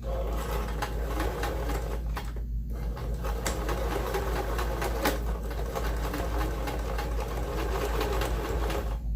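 Electric sewing machine stitching a hem in fabric, with a brief stop about two and a half seconds in, then running on until it stops near the end.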